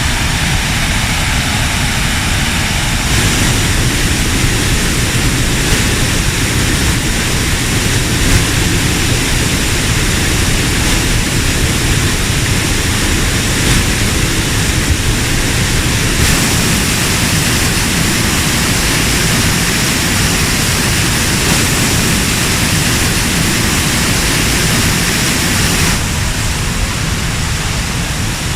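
Loud, steady rushing of a waterfall, an even wash of water noise that shifts in tone a few times.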